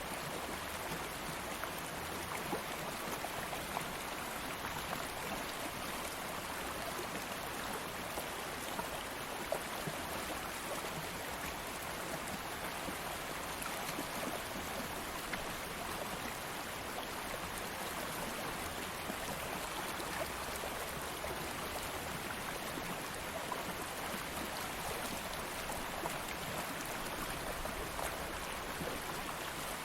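A stream of water flowing steadily over rocks, an even rushing wash with small scattered splashes and drips.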